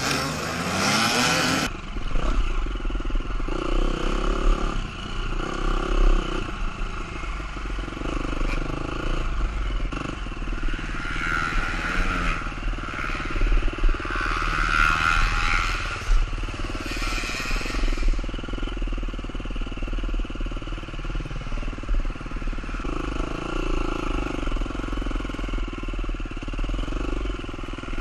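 Several dirt bikes starting and revving together, then, after an abrupt change, a single KTM SX-F four-stroke dirt bike ridden along a trail, its engine rising and falling in revs over a constant low rumble.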